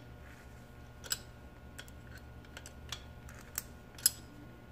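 Sharp metal clicks of open-end wrenches working the nut of an S&S Quickee adjustable pushrod as its top is turned out: a handful of scattered clicks, the loudest about four seconds in.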